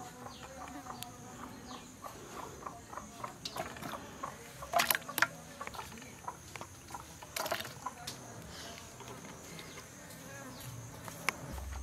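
Hand blade scraping and cutting through a bottle gourd: a run of short scrapes and clicks, with a few louder knocks around the middle. A steady high insect drone runs underneath.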